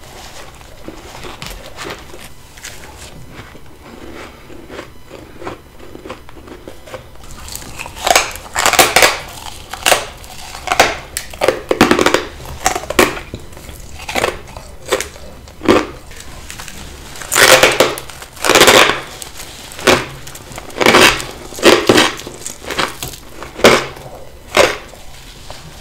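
Bites into frost grown in a deep freezer with a humidifier: a few seconds of faint crackling, then a long series of loud, crisp crunches, one after another about every second.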